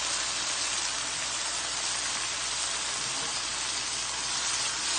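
Tomato-caper pan sauce sizzling steadily in a hot wok, just after a quarter cup of water has gone in.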